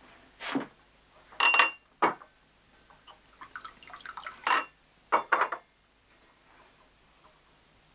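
Glassware being handled: a glass water jug and drinking glass knocked and set down, giving about six sharp clinks, one ringing briefly, with a little water poured into the glass.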